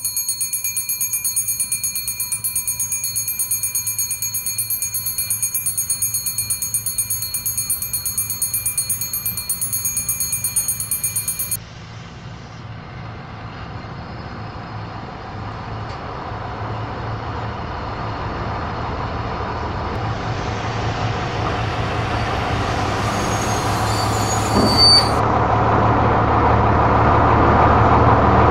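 An electric bell rings rapidly and steadily, then cuts off abruptly about twelve seconds in. After that the rumble of an approaching Littorina railcar on the track grows steadily louder, with a brief high squeal near the end.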